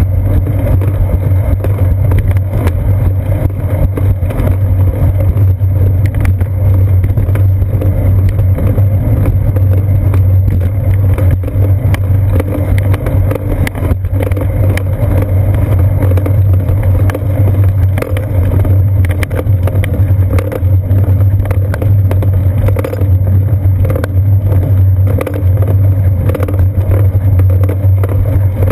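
Steady low rumble of a bicycle ride, picked up by a GoPro Hero 2 mounted on the seat post: the tyres and frame vibrating over a concrete sidewalk, with wind on the camera and scattered faint ticks.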